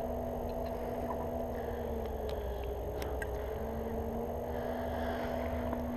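Steady engine drone, holding two level tones while a third slowly sags in pitch and comes back up.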